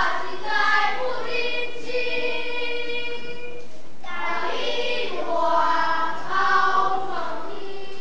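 A children's choir singing a Taiwanese Hokkien poem together, in long drawn-out notes: one sung phrase, a brief breath about halfway through, then a second phrase.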